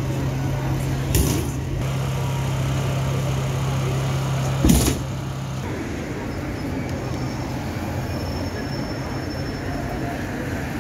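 Busy town-centre street ambience: a general hubbub of traffic and people, with a steady low hum that stops a little over halfway through. There are two knocks, the louder one just under five seconds in.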